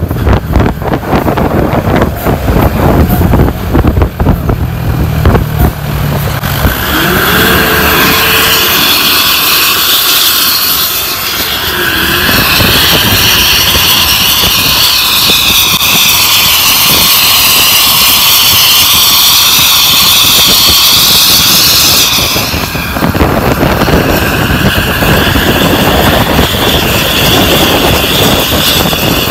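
ANS bus running on the road with its aftermarket 'srigala' exhaust, giving a loud, steady, jet-like whine from about a quarter of the way in until about three-quarters through. Before and after the whine, wind buffets the microphone.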